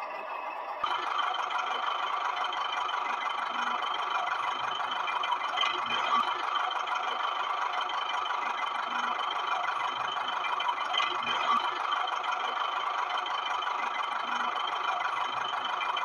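Small electric motor and gears of a toy tractor whirring steadily, with light rattling.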